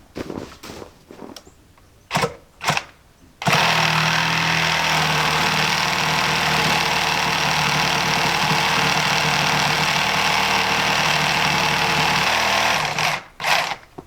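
A few knocks, then a loud motor-driven machine switched on, running steadily with a low hum for about nine seconds before cutting off, followed by two more knocks.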